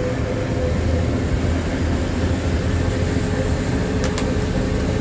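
Steady drone of a bus's engine running at cruising speed, heard from the driver's cab, with tyre hiss on a wet road and rain on the windscreen.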